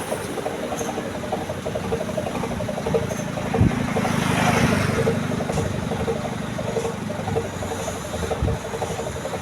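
Bus and traffic engines running in slow, crawling traffic, with a vehicle passing about halfway through and a couple of short knocks.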